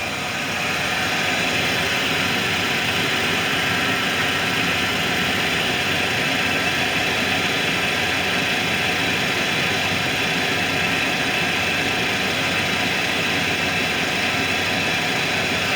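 1993 Ford Bronco's V8 engine idling steadily at operating temperature after a fuel rail replacement.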